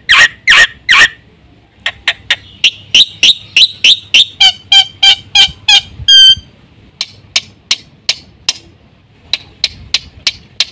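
Black-winged starling (jalak putih) singing loudly. It opens with three harsh shrieks, then a quick run of sharp notes about three a second, a single clear whistle near the middle, and scattered short calls after.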